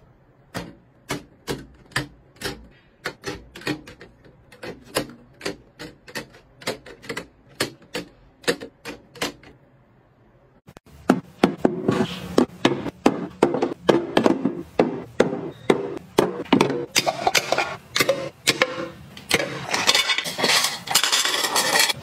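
Sharp hard-plastic clicks, about two to three a second, as items are handled on a clear acrylic organizer. After a short pause, a louder, denser clatter of clear plastic canisters and their lids being set down and handled. Near the end comes a rustling of a plastic bag as dried mushrooms are poured into a canister.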